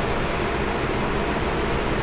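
Steady, even hiss of background noise with no change in level, with no speech or other distinct sound over it.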